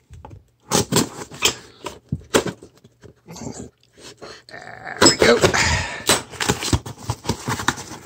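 Pocketknife blade slitting the packing tape on a small cardboard box, with scattered clicks and scrapes. About five seconds in comes louder rubbing and tearing of cardboard as the box is opened.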